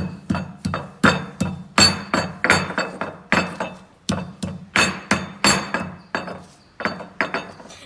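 Pestle pounding herb leaves in a stone mortar to crush them into a paste, sharp knocks at about three strokes a second, each ringing briefly.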